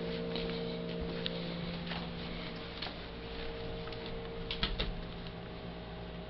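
Steady electrical hum of several low tones, with scattered light clicks and taps and a quick cluster of sharper taps a little past halfway.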